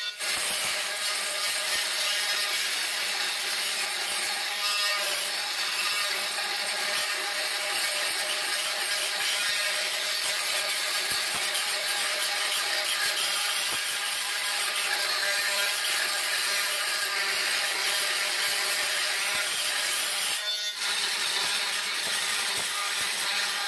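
Oscillating multi-tool with a 1.7 mm diamond grout-removal blade grinding out old grout between floor tiles: a steady pitched grinding. It breaks off briefly just after the start and about 21 seconds in.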